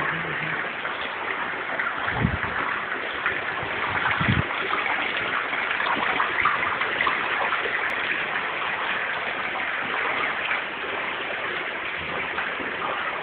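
Steady rush of running water, with two dull low bumps about two and four seconds in.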